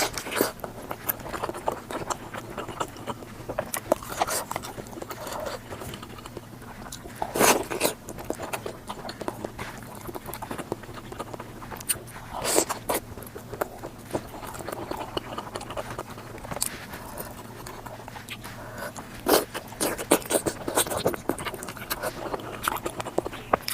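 Close-miked eating sounds, sped up to double speed: wet chewing and mouth smacking, with irregular sharp crunches and clicks and a few louder bites.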